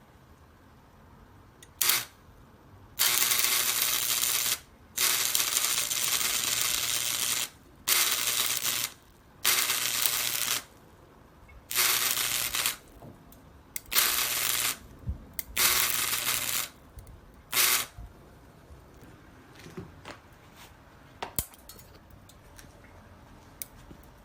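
Stick (shielded metal arc) welding on 1 mm stainless sheet with a Suzukid Home Arc Navi Plus 100-volt AC arc welder and a stainless electrode. The arc crackles and hisses in about eight short runs of up to two seconds each, with a low hum under each run. The runs stop for the last several seconds, leaving only a few light clicks.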